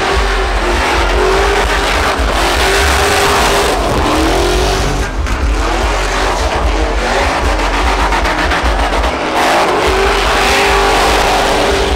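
Pickup trucks doing burnouts and donuts: engines revving hard, their pitch rising and falling, over the steady noise of spinning tires on pavement.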